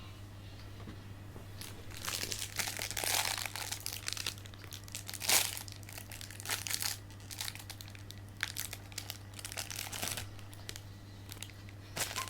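Sticker packaging crinkling and rustling as it is handled and opened, in irregular bursts, with the loudest rustle about five seconds in.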